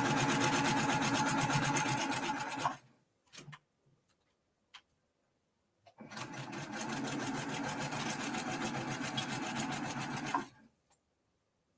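Brother PQ1500 straight-stitch sewing machine running at speed as it stitches a seam. It runs for about three seconds, stops, and starts again about six seconds in for another four seconds or so. There are a few light clicks in the pause.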